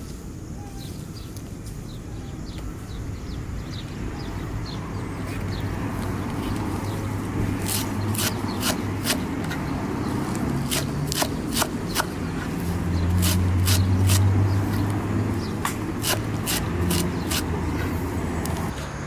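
A kitchen knife chopping fresh herbs on a wooden board. From about seven seconds in come sharp, irregular knocks of the blade on the board, roughly one or two a second. Under them a low engine hum swells to its loudest a little past the middle.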